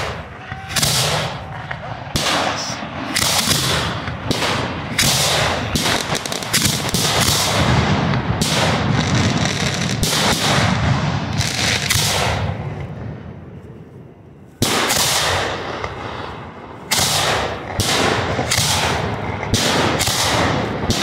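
Aerial fireworks shells firing from racks of mortar tubes, a rapid, irregular series of loud bangs. The bangs ease off briefly about two-thirds of the way through, then a sudden loud bang starts the volley again.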